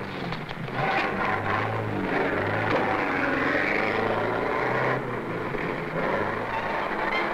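A car driving: engine running with road noise, its low pitch shifting in steps and dipping and rising about halfway through.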